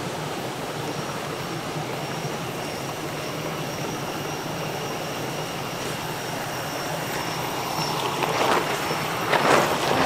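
Steady rushing of running water, with a few louder rustling knocks near the end.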